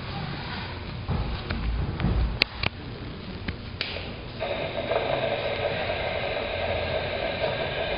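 Static hiss from a SpikerBox bioamplifier's speaker, with a few sharp clicks as its knob is handled. A little over four seconds in, the hiss turns louder and steadier and takes on a humming tone.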